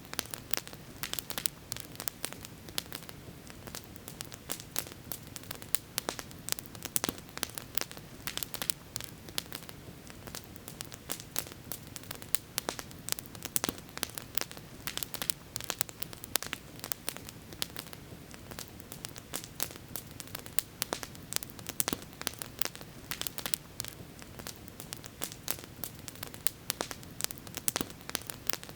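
Campfire burning and crackling: many irregular sharp pops and snaps from the burning wood, over a steady background hiss.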